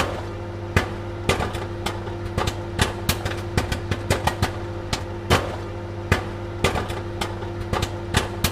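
Popcorn kernels popping: irregular sharp pops, a few a second, over a steady low hum.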